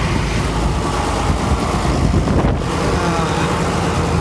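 Farm tractor engine running steadily at idle, with wind blowing across the microphone.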